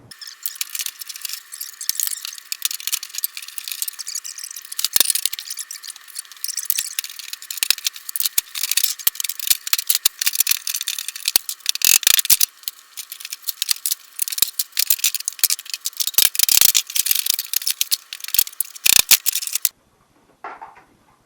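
Rapid, busy clatter of knocks and rattles as braces are taken off a wooden cupboard. It sounds thin, with no low end, and stops abruptly about 20 seconds in.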